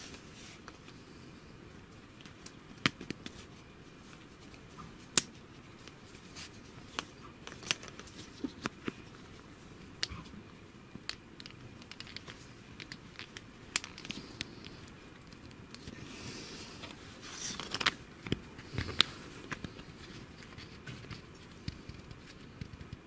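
Plastic pipe fittings handled by hand: scattered sharp clicks and light knocks as a compression elbow is fitted onto 20 mm HDPE irrigation pipe, with a longer rustle about seventeen seconds in.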